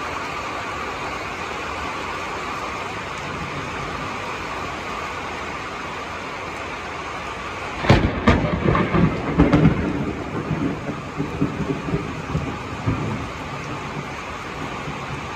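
Steady hiss of heavy rain, broken about eight seconds in by a sudden sharp thunderclap that rolls on as rumbling thunder for about five seconds before fading back into the rain.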